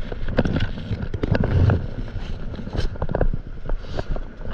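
Wind buffeting the microphone, with a run of irregular knocks and clicks from a fishing rod and gear being handled on a paddleboard.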